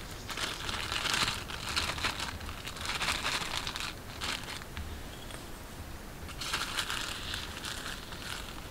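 A small clear plastic bag crinkling as it is handled and opened. The crinkling comes in two spells, with a quieter pause of about two seconds in the middle.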